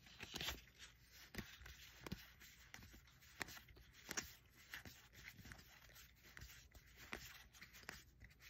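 Magic: The Gathering trading cards sliding against each other as they are flipped through in the hand one at a time: faint, irregular clicks and paper rustles.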